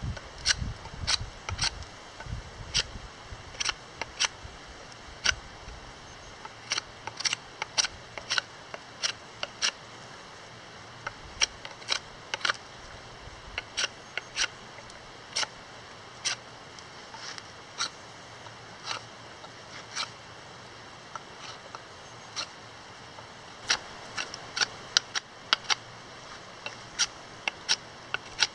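Mora knife carving a cedar plank: a run of short, sharp clicks as the blade takes small cuts and shavings from the wood, coming irregularly, about one or two a second.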